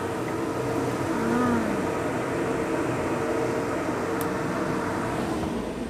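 Vegetables and noodles simmering in a wok of liquid over a gas burner: a steady hiss with a low, steady hum underneath.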